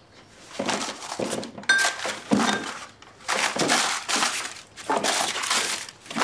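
Objects being handled and rummaged: several bursts of rustling and crumpling with knocks, and a short glassy clink nearly two seconds in.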